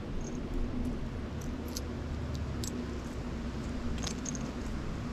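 Small metal objects jingling in a few light, scattered tinkles over a steady low rumble of blizzard wind.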